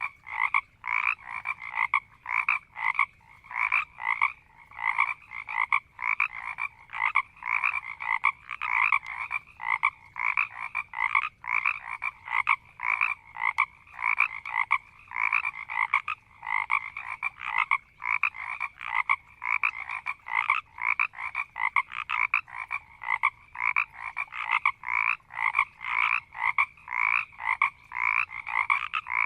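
A chorus of marsh frogs croaking and growling, short rasping calls repeating several times a second and overlapping without a break.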